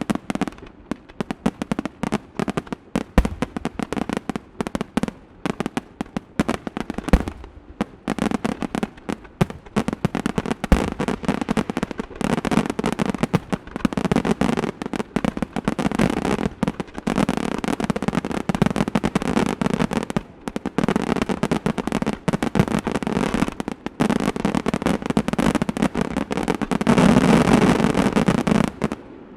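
Fireworks display: a rapid, dense run of bangs and crackling reports that thickens into a loud, continuous barrage near the end, then cuts off suddenly.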